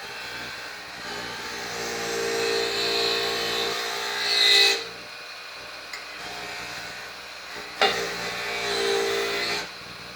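Motor-driven wire wheel running steadily while rusty pliers are pressed against it twice, a long harsh scratching as the bristles scour off rust and gunk, the first pass loudest just before it lets up.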